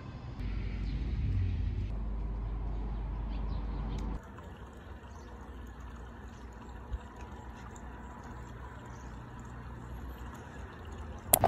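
Outdoor street ambience with a low traffic rumble, loud for the first four seconds and then cutting off abruptly to a quieter steady hum. A sharp click comes near the end.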